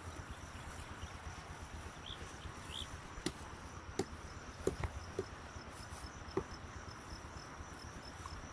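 Dry grass stalks rustling and snapping with a few sharp clicks as bundles are laid and pressed by hand over a sown seedbed, over a faint steady chirring of insects.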